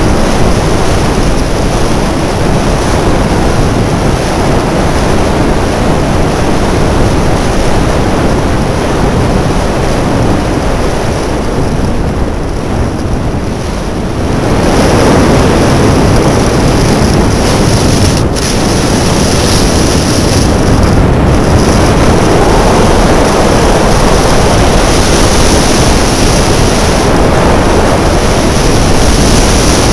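Wind rushing over a helmet-mounted camera's microphone, with skis hissing on groomed snow, during a fast downhill ski run. It eases briefly about twelve seconds in, then picks up again.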